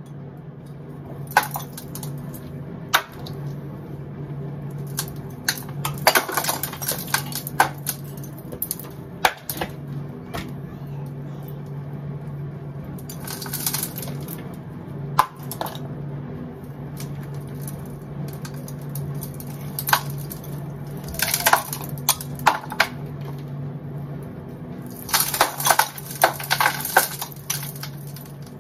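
Loose mortar and sandstone bits being scraped and pulled by hand from a hole in a stone foundation wall. Sharp single clicks and short spells of gritty scraping and clatter come every few seconds, over a steady low hum.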